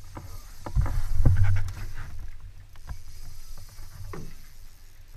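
Knocks and thumps on a small boat with a low rumble of water and handling, loudest about a second in, then a few fainter knocks.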